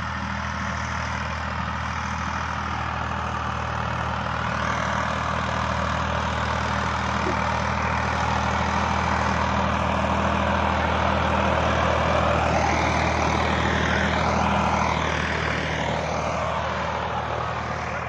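Indo Farm tractor's diesel engine running steadily as it pulls a laser land leveller. It grows louder as the tractor drives past close by, most of the way through, then eases off as it moves away.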